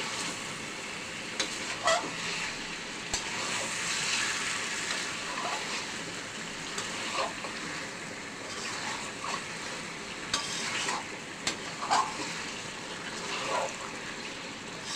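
Food sizzling as it fries in a pan, with a spatula scraping and stirring against the pan every second or two.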